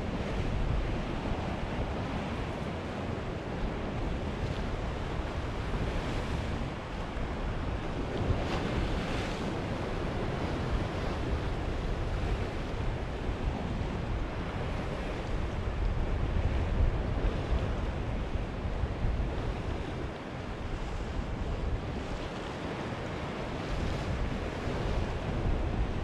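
Sea waves washing onto a rocky shore: a steady rush of surf that swells and eases every several seconds, with wind rumbling on the microphone.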